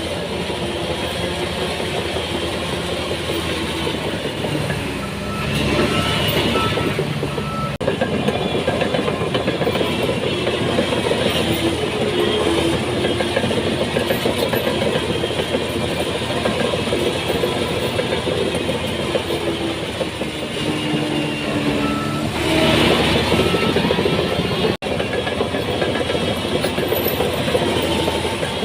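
Heavy diesel engine of a Shantui DH17C3 crawler bulldozer running under load while pushing soil. It swells louder twice, a few seconds in and again near the end.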